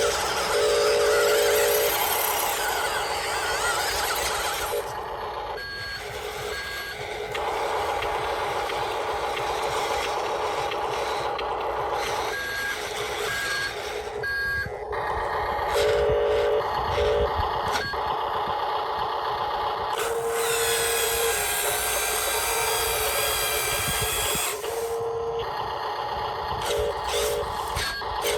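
Radio-controlled toy construction machines working: small electric gear motors whirring steadily, with short runs of reversing beeps sounding several times.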